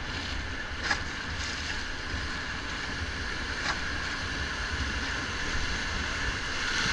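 Steady rush of whitewater around an inflatable raft going through a rapid, with wind rumbling on the microphone. Two short sharp sounds stand out, about three seconds apart.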